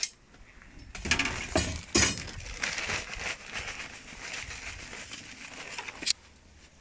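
Straw and combustibles crackling and rustling in a raku reduction bin as more material is tipped onto the burning straw, with a few sharp knocks in the first two seconds; it cuts off suddenly near the end.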